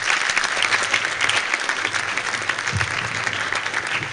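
Audience applauding, many hands clapping in a dense, steady ovation.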